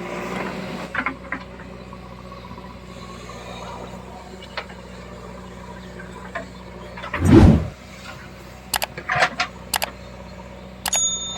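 Diesel engine of a tractor or backhoe loader running steadily. About seven seconds in there is a brief, loud, low-pitched burst, and near the end come several sharp knocks.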